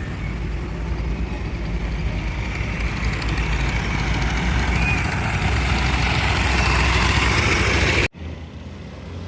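Heavy truck engine running steadily, growing slightly louder, then cut off abruptly about eight seconds in, leaving a quieter steady hum.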